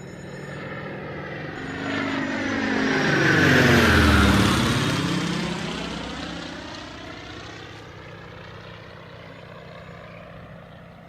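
Aircraft flying low past, its engine growing louder to a peak about four seconds in, then fading away.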